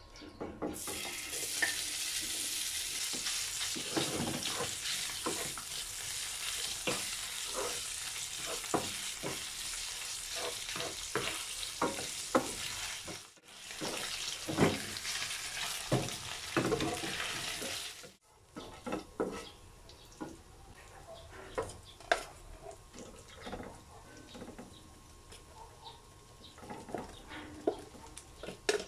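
Sliced meat sizzling hard in hot oil in a frying pan, with a wooden spatula scraping and knocking against the pan as it is stirred. After two abrupt cuts, about 13 and 18 seconds in, the sizzle is much quieter and scattered scrapes and taps remain.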